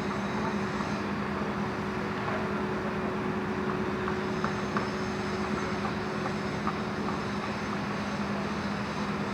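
Earthmoving machine's diesel engine running at a steady speed, a constant low hum with a few faint clicks and clanks over it.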